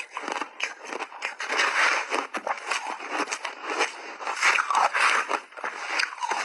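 Close-miked crunching of shaved ice being chewed, a rapid, irregular crackle of many small cracks, with a metal spoon scraping and digging through the ice in the bowl.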